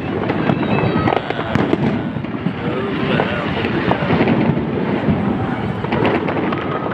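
Fireworks display going off: a dense, continuous crackling and popping of bursting shells.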